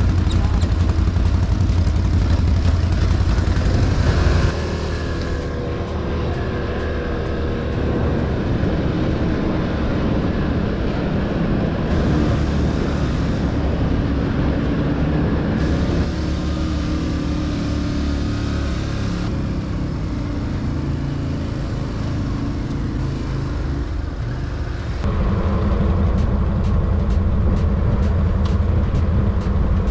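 ATV engines running under load as quads climb a muddy trail. The engine note shifts and the level jumps abruptly several times.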